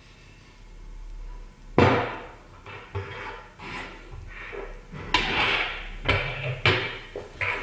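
Plastic and metal meat-grinder parts knocking on a wooden tabletop as they are handled. A sharp knock comes about two seconds in, then a string of lighter knocks with a short rubbing noise about five seconds in.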